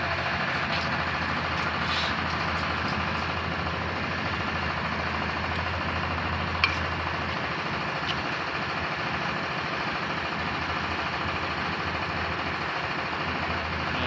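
An engine idling steadily. There are a few light clicks, the sharpest about six and a half seconds in.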